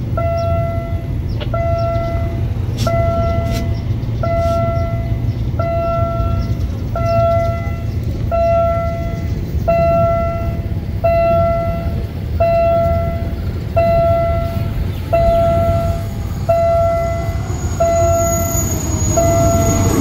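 A repeating electronic warning bell, one pitched ring about every second and a half, over the low rumble of a diesel locomotive as it approaches hauling a passenger train and comes alongside near the end. A faint high whine sets in near the end.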